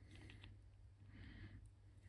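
Near silence: a low steady hum with a few faint clicks.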